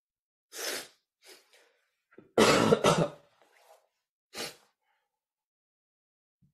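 A person coughing and clearing the throat in a few short bursts, the loudest a double cough about two and a half seconds in, another near four and a half seconds.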